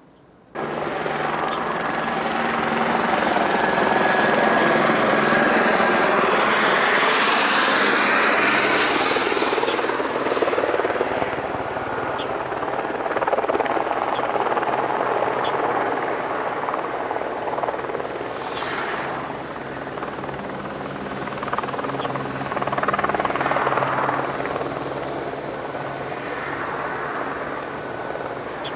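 Helibras AS350 B2 (Écureuil) helicopter running close by: the whine of its single turboshaft engine over the noise of the rotor. The sound comes in suddenly about half a second in and is loudest in the first ten seconds, with a sweeping change in tone as it moves. It then runs a little quieter and steadier, swelling again past the middle.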